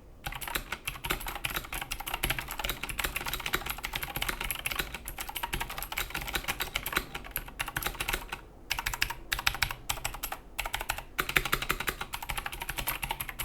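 Continuous fast typing on a mechanical keyboard with clicky Gateron G Blue switches and double-shot PBT keycaps: rapid sharp key clicks, broken by a few brief pauses.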